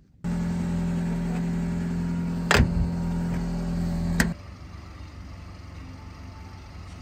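Car driving, heard from inside the cabin: a steady engine and road drone with a strong low hum, broken by two sharp knocks about two and a half and four seconds in. A little after four seconds it cuts to a much quieter steady low hum.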